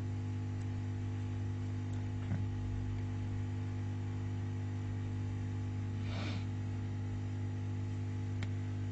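Steady electrical mains hum with several evenly spaced tones. A faint click about two seconds in, a short rustle about six seconds in and a sharp click near the end.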